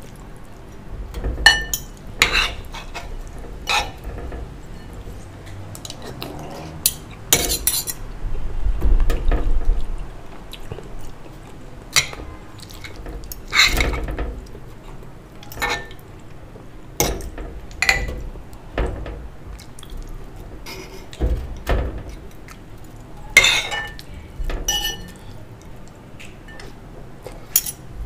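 Metal spoon and fork clinking and scraping against ceramic bowls at irregular intervals as someone eats soup and rice.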